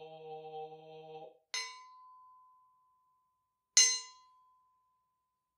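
A chanting male voice ends on a held note about a second in. A Buddhist bowl bell is then struck twice, about two seconds apart, the second strike louder. Each strike rings on one steady tone that slowly fades.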